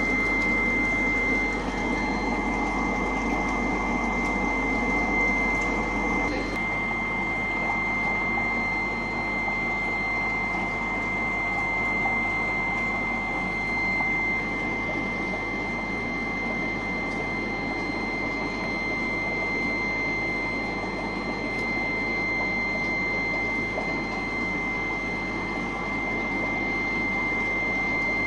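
Steady machine-like hum and hiss with a constant thin high whine; a low rumble underneath drops away about six seconds in.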